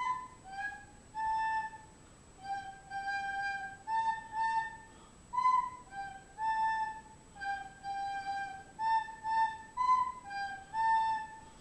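A slow, simple melody played one note at a time on a flute-like wind instrument, with clear held notes.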